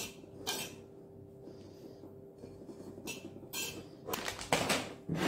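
Metal spoon scraping and clinking against a ceramic plate while couscous with sugar is stirred. There are a few short scrapes, with a quiet stretch in the middle.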